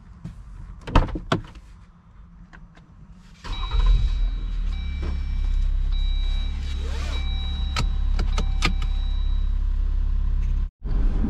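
A couple of sharp knocks, then about three and a half seconds in the Jeep Wrangler JL's 3.0-litre EcoDiesel V6 starts and settles into a steady idle.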